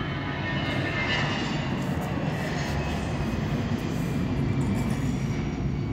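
Steady background rumble and hiss with a low hum, continuous and without distinct events.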